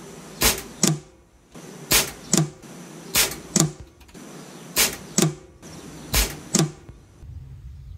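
Five shots from an Air Arms XTi-50 .177 PCP air rifle in quick succession. Each shot is a sharp crack followed a little under half a second later by a second sharp crack.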